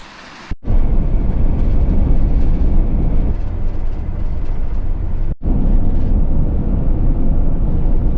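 Camper van driving along a road: a loud, steady low rumble of engine and road noise, cut off abruptly twice, about half a second and five seconds in.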